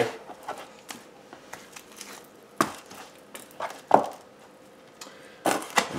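Kitchen knife cutting raw chicken wings apart at the joints on a plastic cutting board: scattered soft taps and clicks, with two louder knocks of the blade on the board, one midway and one about four seconds in.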